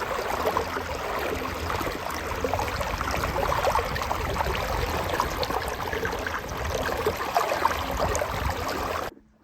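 Water splashing and gurgling, a steady crackling rush that cuts off suddenly near the end.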